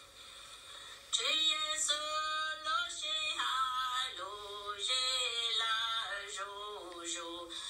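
A solo voice singing a melodic line with held, wavering notes, starting about a second in, over a steady high-pitched drone.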